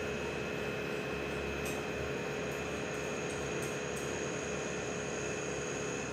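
Steady machine hum with a few constant whining tones, from shop machinery or ventilation, with a few light clicks now and then.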